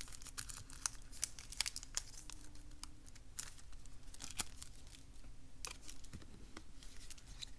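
Hands handling oracle cards and a small card-sized pocket magnifier on a tabletop: faint, irregular clicks and light rustling.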